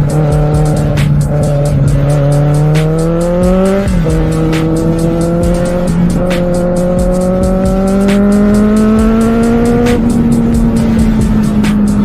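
Kawasaki Z750R's inline-four engine pulling under acceleration: its note rises, drops sharply on an upshift about four seconds in, then climbs slowly again and eases off near the end.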